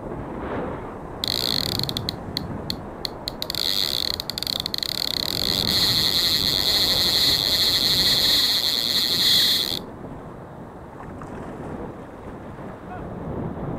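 Fishing reel whirring with a ratchet-like buzz: high-pitched, first in stuttering bursts, then steady for about five seconds before it stops abruptly. Surf and wind underneath.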